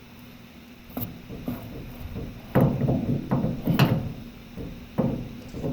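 Knocks and clatter of hard objects being handled: a sharp knock about a second in, a busier run of knocks between about two and a half and four seconds, and one more knock near the end.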